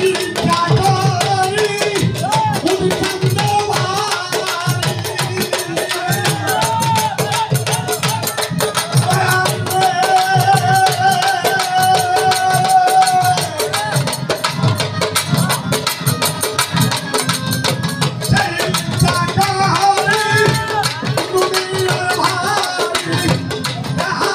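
A Bengali folk song played live: a man sings while playing violin, over two dhol drums beating a driving rhythm and a harmonium underneath.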